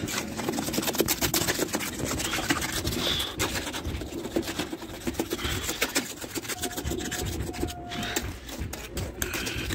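Irregular gritty scraping and rubbing, made of many short scrapes and knocks.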